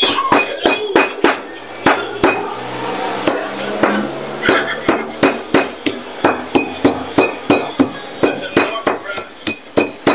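Stone pestle pounding small chilies in a stone mortar: a run of sharp knocks, settling after about four seconds into a steady beat of about three strikes a second.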